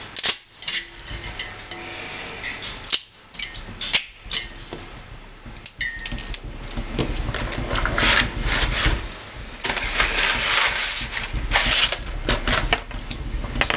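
Dry spaghetti strands clicking and rattling against a stainless steel pot as they are fed in and pushed down, with irregular sharp knocks and a steady low rumble underneath.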